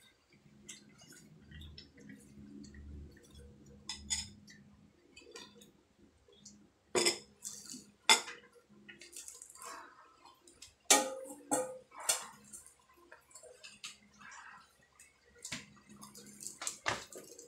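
Metal spoon clinking and scraping in a ceramic soup bowl and the bowl being set down on the table: a handful of sharp clinks and knocks, with soft eating sounds between them. Near the end comes a bite into a crisp fried chili-pepper spring roll.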